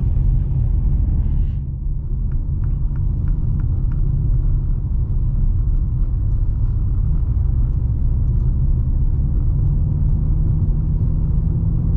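Steady low rumble inside the cabin of a 2023 Mini Countryman John Cooper Works driving at city speed: road and tyre noise together with the running drivetrain.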